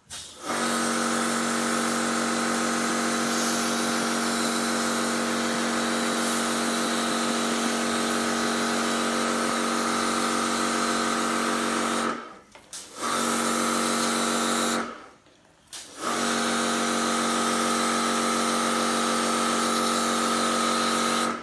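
Small electric pressure washer running with a steady motor hum and a spray hiss while an LG air conditioner is being washed. It cuts out twice for about a second each time, about twelve and fifteen seconds in, then stops at the end.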